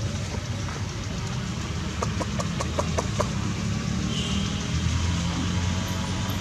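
A motor engine running steadily with a low rumble. Midway through comes a quick run of about seven light clicks.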